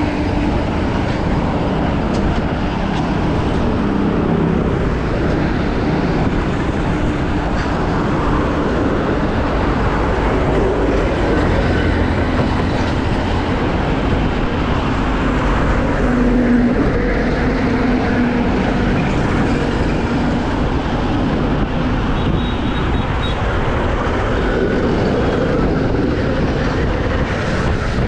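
Steady rush of wind and road noise from a road bike ridden at about 30 to 40 km/h, with the engines of surrounding motorcycles, trucks and cars running underneath.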